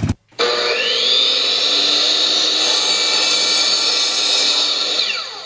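Power tool running: its whine rises in pitch as it spins up, then holds steady, and falls away near the end as the sound fades out.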